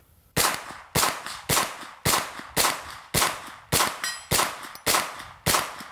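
Wilson Combat AR9-G 9mm carbine firing semi-automatic: ten shots at a steady pace of about two a second, each followed by a short echo. The gun is cycling without a stoppage.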